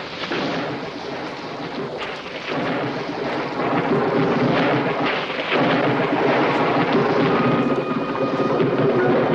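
Thunder rumbling over heavy rain, cutting in suddenly and swelling louder twice. A held musical tone comes in near the end.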